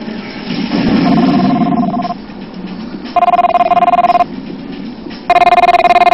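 Electronic telephone ringer ringing three times, each ring about a second long with about a second between them. The first ring is softer and sits under a louder low-pitched wash of sound.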